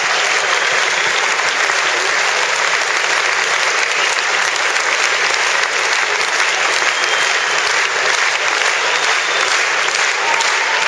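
Large crowd applauding steadily, a dense, continuous clapping with no let-up.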